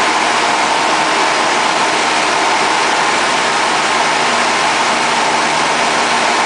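Light aircraft's piston engine and propeller droning steadily, mixed with wind rushing over the airframe, heard from inside the cockpit in cruise flight.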